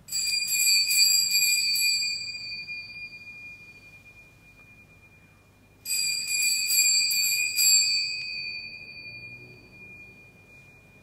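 Altar bells (Sanctus bells) rung at the elevation of the chalice during the consecration. There are two rounds about six seconds apart, each a couple of seconds of quick shaken strokes followed by a high ring that slowly fades.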